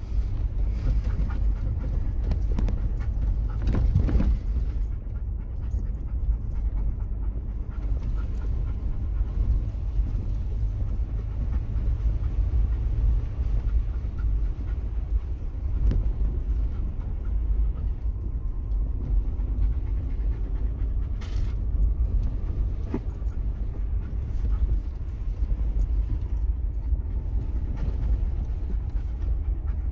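Cabin noise of a four-wheel-drive vehicle crawling over a bumpy, snowy dirt trail: a steady low rumble of engine and tyres, with occasional knocks and jolts from bumps, the strongest about four seconds in.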